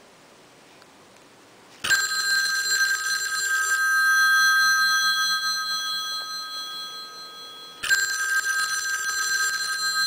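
Rotary telephone's electromechanical ringer ringing, the clapper striking rapidly between the two metal gongs. It starts suddenly about two seconds in, rings for about six seconds while slowly fading, then starts again near the end.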